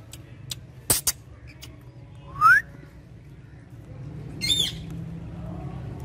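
Rose-ringed parakeet giving a brief high squawk about four and a half seconds in. Before it, a sharp click about a second in and a loud rising whistle about two and a half seconds in.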